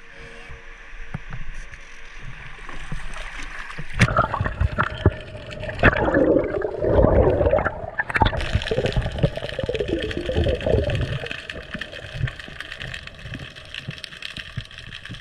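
A freediver going into the sea: a sudden splash about four seconds in, then dense underwater bubbling and gurgling around the camera, easing to a quieter underwater hiss after about eleven seconds.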